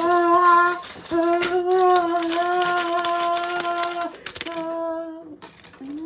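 A high voice humming long held notes at one steady pitch, in several stretches of one to three seconds with short breaks, over clicking and rattling handling noise.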